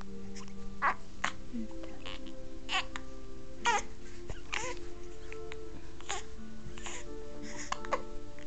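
A newborn baby hiccuping: about eight short, squeaky catches roughly a second apart, some drawn into a small whimpering cry.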